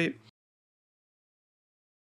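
The last syllable of a man's speech, ending about a third of a second in, then complete digital silence.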